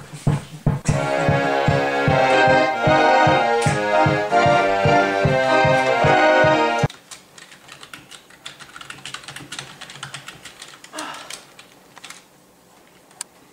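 Electronic home organ playing loud, sustained chords over a steady beat, cutting off abruptly about seven seconds in. After it comes quieter, irregular typing on a computer keyboard.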